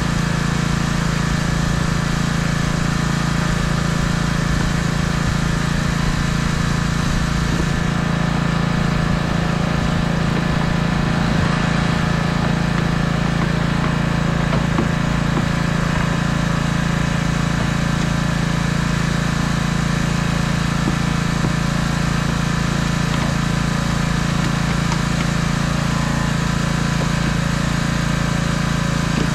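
An engine running steadily at one constant speed, an unbroken drone with no change in pitch or level.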